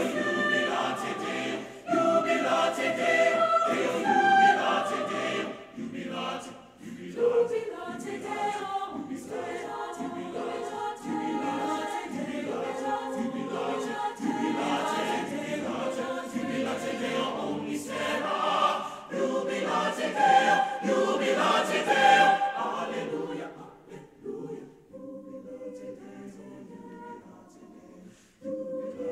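Mixed choir of men's and women's voices singing, full and loud for most of the time, then dropping to a softer, thinner passage for the last five seconds or so.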